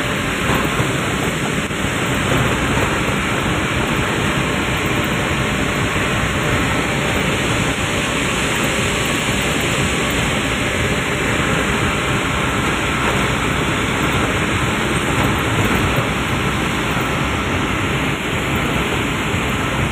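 Steady running noise of a dumper truck driving along a road, heard from inside the cab: engine and road noise blended into an even, unbroken rush.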